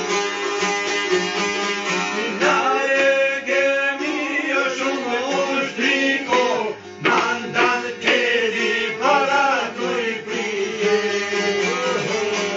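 Several Albanian long-necked lutes (çifteli and sharki) plucked together in a folk tune. A man's voice sings a wavering, ornamented line over them from about two seconds in until near the end.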